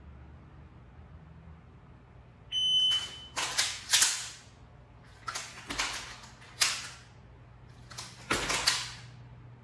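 A shot timer gives one steady high-pitched beep about two and a half seconds in. A run of sharp mechanical clicks and clacks follows in several clusters as a pistol is drawn, dry-fired and reloaded.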